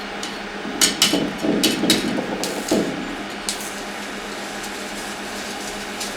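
Stick-welding arc from a repaired Zubr MOSFET inverter welder set to minimum current: a burst of sharp cracks and crackles as the electrode strikes and burns for a couple of seconds, then only a steady hum. This is a test run at low current after one transistor per arm was removed to stop the welder tripping into protection.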